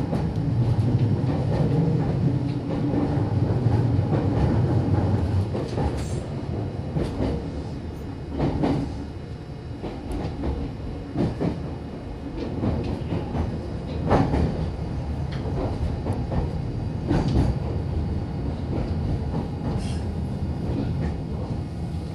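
Meitetsu electric commuter train running, heard from inside the carriage: a low motor and running hum eases off after about five seconds. The train then rolls on more quietly, with single wheel clacks over rail joints about every three seconds, as it slows on the approach to a stop.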